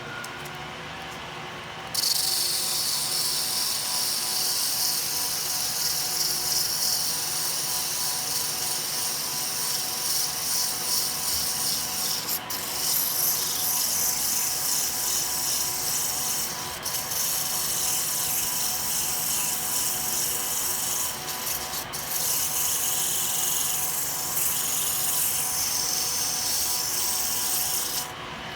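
Steady abrasive rubbing on metal, starting about two seconds in and stopping shortly before the end, with a few brief breaks. A shop fan hums steadily underneath.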